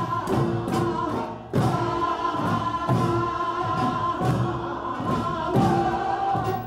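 A group of singers performing a Korean traditional rice-field work song (deulnorae) in held, drawn-out phrases, with Korean barrel drums (buk) beating time about twice a second.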